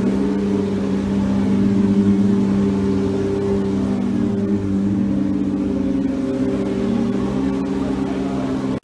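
Racing car engines running: a steady drone whose pitch rises and falls in places.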